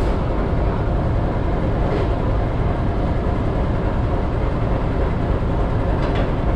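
Diesel locomotive engine running with a steady deep rumble as the train rolls slowly past.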